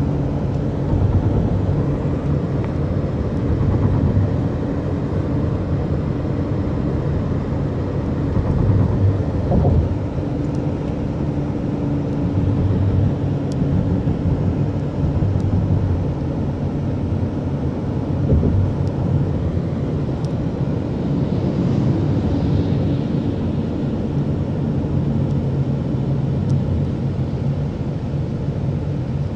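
Steady road and engine noise of a moving car, heard from inside the cabin: a continuous low rumble with a low engine hum under it.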